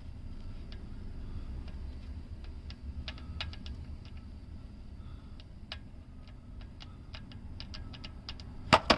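Scattered light clicks of a 17 mm wrench working the oil drain plug loose, then two sharp knocks near the end.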